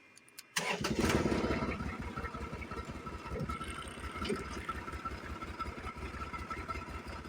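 Boxer 700HDX mini skid steer's engine starting about half a second in, catching at once and then running steadily with a fast low chug and a steady whine.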